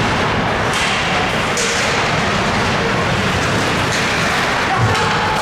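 Ice hockey rink sound during play: a steady wash of skates on ice and arena crowd noise, broken by a few sharp clacks from sticks and puck, about a second in, near two seconds, and again past four seconds.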